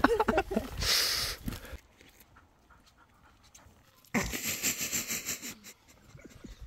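Dog panting close by: a run of quick, noisy breaths lasting a second or two, starting a little past halfway.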